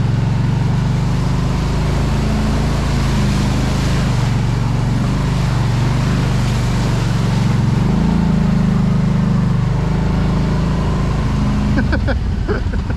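Off-road vehicle's engine running steadily, its pitch rising for a couple of seconds about eight seconds in, over a steady rushing noise.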